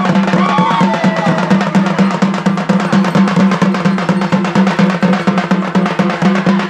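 Tamil parai (thappu) frame drums beaten with sticks in a fast, steady rhythm.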